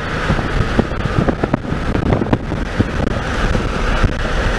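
Steady road and wind noise from a moving vehicle, with a low rumble and many short clicks and knocks throughout.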